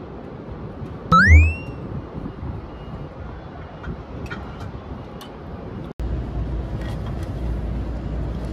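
A short metallic squeal that rises in pitch and then holds, with a thud under it, about a second in, as the rescue car's brake stopper is clamped onto its rail. A steady low rumble follows in the second half.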